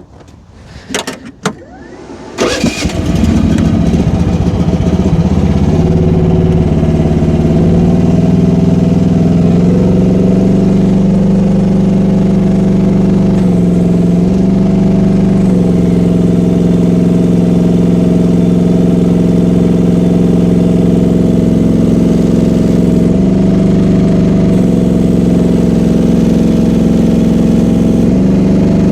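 Small gasoline engine of a Rippa R10 mini excavator starting after a few clicks, then running steadily. Its pitch shifts several times as the auxiliary hydraulic pedal is pushed, loading the hydraulic pump against a pressure gauge to read the maximum pressure, about 2300 psi.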